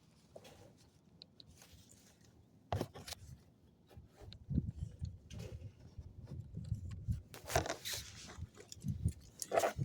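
Hands working a plastic clamp on a car door's electrical plug loose: sharp clicks a few seconds in, then uneven rustling and crackling handling noise.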